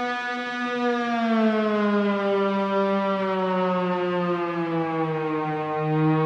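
A GarageBand for iOS software instrument played with a pitch slide to imitate a siren. One held tone, about a second in, glides slowly down over several seconds, then starts to rise again near the end.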